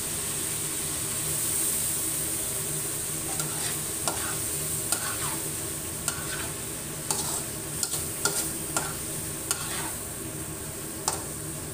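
Igado frying in a wok with a steady sizzle, while a spatula scrapes and clacks against the pan in irregular strokes as the food is stirred, starting about three seconds in.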